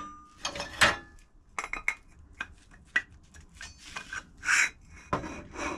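Metal parts knocking, clinking and scraping as a tight-fitting bearing hub is worked onto a front axle: a string of short clicks and knocks with a few longer scrapes.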